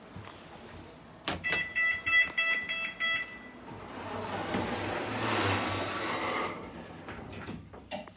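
A lift call button clicked, then a quick run of electronic beeps from the lift, followed by a few seconds of rushing noise that swells and fades.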